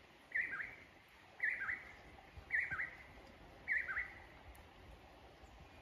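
A songbird calling four times, about once a second, each call a short, high, falling two-note phrase. There is a faint steady hiss behind it.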